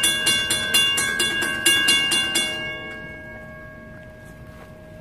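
Railroad crossing bell ringing rapidly, about four strikes a second, as the crossing gate arm lowers. The bell stops about two and a half seconds in, once the gate is down, and its ring fades out.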